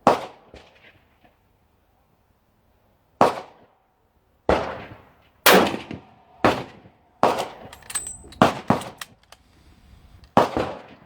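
A string of about eight loud gunshots at irregular intervals, each trailing off in an echo, with several sharper, thinner cracks in between near the middle. The shots come as quickly as one a second at times.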